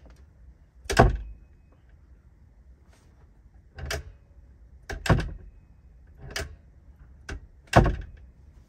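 A wooden loft door being opened and shut repeatedly, about six sharp knocks and latch clicks, the heaviest closes coming about a second in and near the end. The door, just re-hung on its hinges with its latch chopped in, is being tested and now shuts and latches without needing to be slammed.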